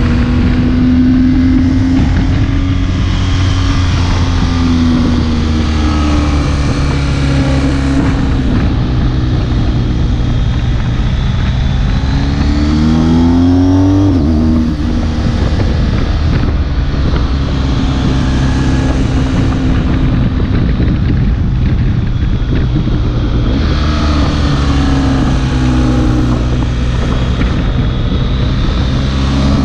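BMW R 1250 GS HP Rallye's 1254 cc boxer twin pulling under way on the road, its pitch rising and falling with the throttle; about halfway through the revs climb steeply, then drop away sharply. Wind noise on the microphone runs under the engine.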